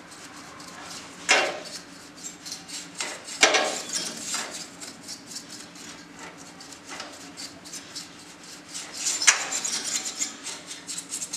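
Small bristle paintbrush, wet with kerosene, scrubbing and flicking across the plastic blades of a CPU cooler fan. It makes rapid scratchy rustles and clicks, with louder strokes about a second in, at three and a half seconds, and at nine seconds.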